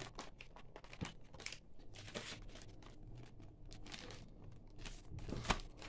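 Faint crinkling and rustling of thin clear plastic bags holding plastic model-kit sprues as they are handled, in irregular small crackles, with a slightly louder rustle about five and a half seconds in.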